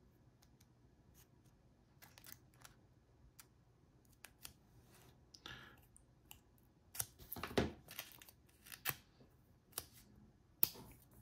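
Scissors snipping thin aluminium beer-can sheet, rounding off the corners of a padlock shim: faint, irregular short cuts that come closer together and louder in the second half.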